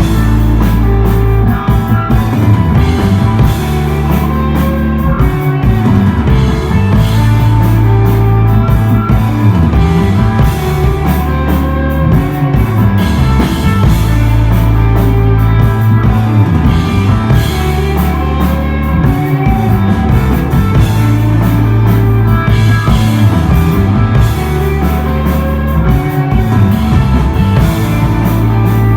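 Live desert rock band playing loudly, with electric guitar and a drum kit.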